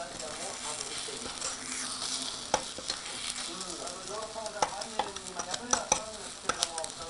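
Takoyaki batter sizzling in an electric takoyaki pan while two metal skewers scrape and stir through it to turn the balls, tapping the pan's moulds with sharp clicks every so often.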